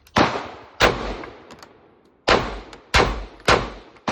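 Six gunshots from a firearm at a shooting range, fired at an uneven pace, each sharp crack trailing off in an echo.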